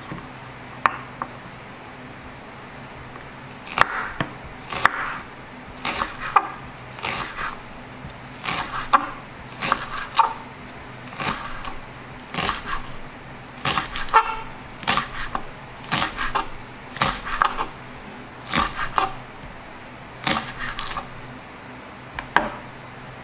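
Kitchen knife slicing a long green onion on a wooden cutting board: a run of crisp knocks as each cut meets the board, often in quick groups of two or three, starting about four seconds in and stopping just before the end. A faint steady hum runs underneath.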